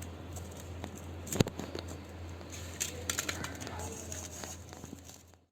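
Masala-coated pomfret (vavval) fish frying in hot oil: a steady sizzle with scattered crackles and one sharper pop about one and a half seconds in, over a low steady hum. The sound fades out just before the end.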